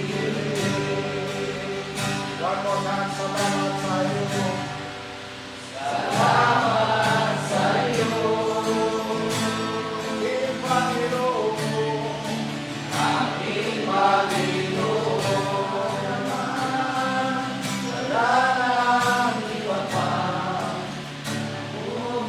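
Gospel worship music: voices singing over a steady keyboard-like accompaniment, the music dipping briefly about five seconds in and coming back louder.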